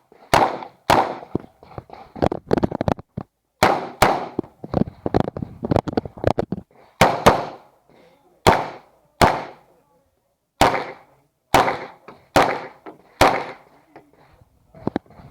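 Uzi Pro 9mm pistol firing a stage string: single shots and quick pairs at an uneven pace, with short pauses between groups while the shooter moves to the next targets.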